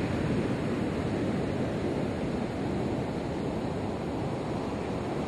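Ocean surf washing onto a sandy beach, mixed with wind noise on the microphone: a steady, even low rush.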